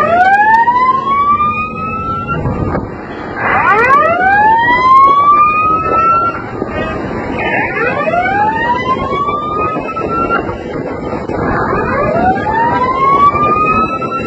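A siren sounding in repeated rising wails. Each wail climbs in pitch for about two seconds and a new one starts roughly every four seconds, over a steady rushing background noise.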